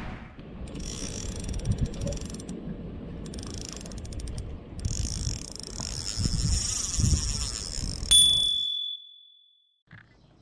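Intro sound effects: three runs of rapid ratchet-like clicking over a low rumble, then a sharp hit about eight seconds in with a high ringing tone that fades away.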